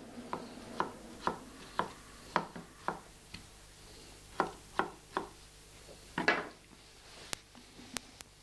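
Kitchen knife cutting vegetables on a chopping board: single cuts about two a second, then a pause, a few more cuts, and a louder knock about six seconds in. A few sharp clicks follow near the end.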